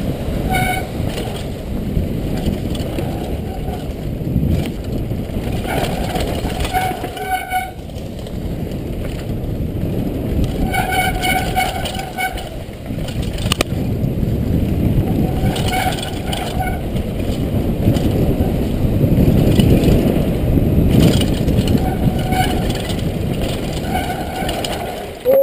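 Wind buffeting a helmet-mounted camera over the rumble and rattle of a downhill mountain bike running fast on a dry dirt and gravel trail, with brief high squeaks every few seconds.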